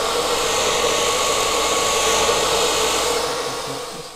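Philips handheld hair dryer blowing steadily on damp hair: a loud even rush of air over a steady hum. It fades out near the end.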